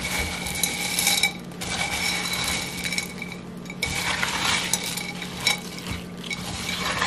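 A spoon stirring frozen corn, peas, diced chicken and cream of chicken soup in a stoneware slow-cooker crock, scraping and rattling against the crock in repeated strokes about once a second.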